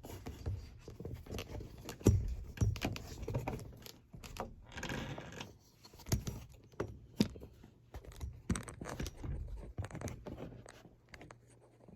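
Irregular knocks, rattles and scrapes of loose objects being picked up and moved around in a tractor cab, with the loudest knock about two seconds in.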